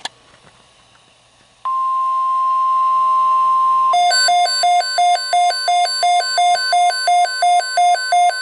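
Midland WR120 weather radio sounding an alert for a severe thunderstorm watch. After a click and a moment of quiet, the steady NOAA Weather Radio 1050 Hz warning alarm tone starts about 1.7 s in. From about 4 s, a pulsing beep of roughly two to three a second sounds over it.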